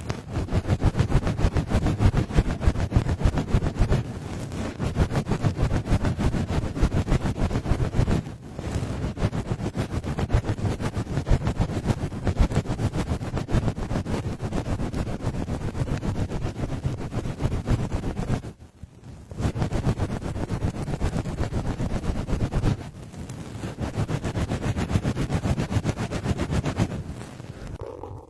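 ASMR 'helicopter' trigger made by hand on a binaural microphone: a fast, rhythmic fluttering chop that imitates helicopter rotor blades, in long stretches with a few brief breaks.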